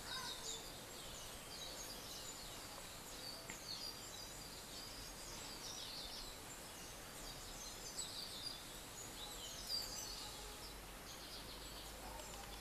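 Birds chirping in the background: many short, high chirps and twitters over a faint steady hiss.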